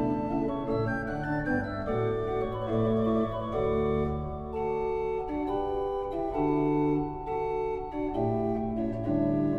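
Church pipe organ (choir organ) playing a slow passage of held chords, the notes changing every half second to a second.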